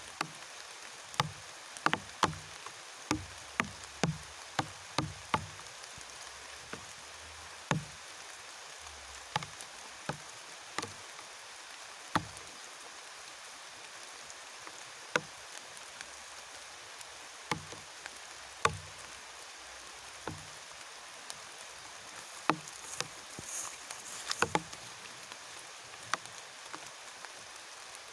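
Steady rain hiss with irregular sharp knocks and taps, many in the first few seconds and scattered after.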